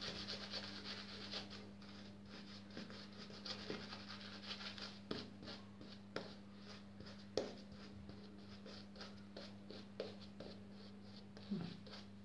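Freshly honed straight razor cutting stubble through shaving lather: a run of faint, quick rasping strokes with an occasional sharper click. A steady low hum runs underneath.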